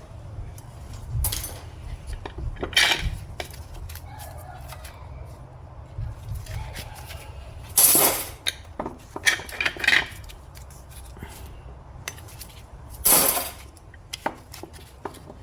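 Metal parts of an automatic transmission being handled during teardown: scattered clinks and knocks of steel pieces against each other and the bench, with the loudest clatters about 8 s and 13 s in.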